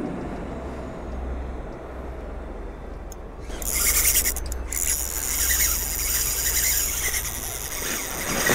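Spinning reel's drag screaming as a big hooked fish runs and strips line, starting suddenly about three and a half seconds in and running on with one short break. A low rumble comes before it.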